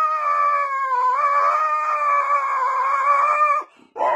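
Husky howling: one long, steady howl that breaks off near the end, and the next howl starts just after.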